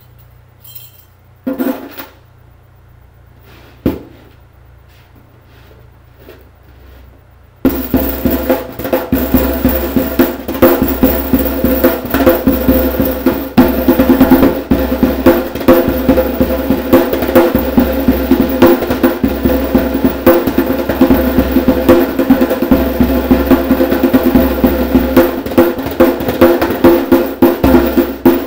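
Djembe played by hand with metal dog tags lying on the head, which rattle against the skin on each stroke. After two lone knocks, fast continuous drumming starts about eight seconds in and runs on loud.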